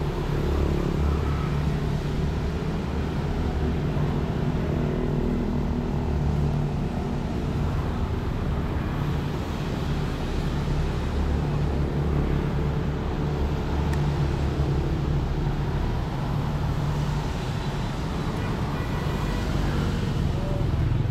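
Road traffic on a busy city street: a steady low rumble of passing motor vehicles.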